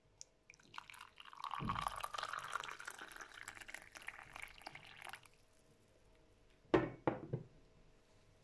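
Hot water poured into a glass over dried sage leaves for about four seconds, the filling sound rising slightly in pitch as the glass fills. Two knocks follow about a second and a half later.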